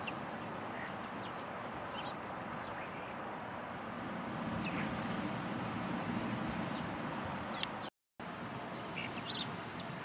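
House sparrows chirping: many short, high, falling chirps over a steady background hiss.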